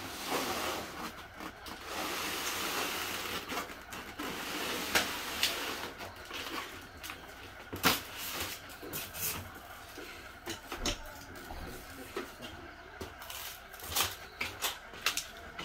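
A Samsung RT20FARVDS refrigerator being tilted and shoved along the ground by hand: a rough scraping rush for the first few seconds, then scattered knocks and bumps, the loudest about eight seconds in.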